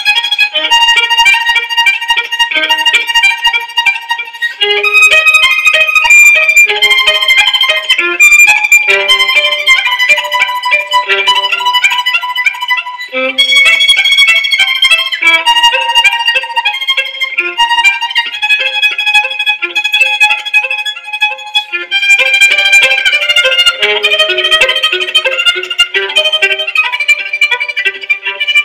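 Instrumental background music: a busy line of quick, bright notes that changes pitch every fraction of a second.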